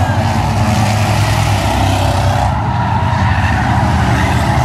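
A pack of race cars running laps on an oval short track, their engines blending into a loud, steady drone.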